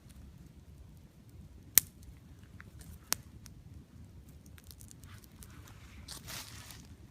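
Twig campfire crackling, with two sharp pops about two and three seconds in, then a brief rustle near the end.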